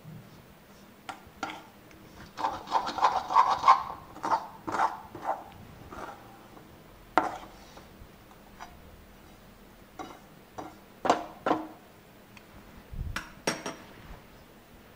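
Large metal spoon scraping and knocking against a metal kadai while stirring a dry, crumbly mix of roasted sesame, wheat flour, sugar and nuts. Irregular strokes: a busy flurry of scraping a couple of seconds in, then scattered single scrapes and clinks.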